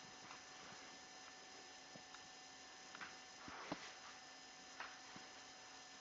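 Near silence: room tone with a faint steady hum and a few soft taps and knocks, the loudest a little before the four-second mark.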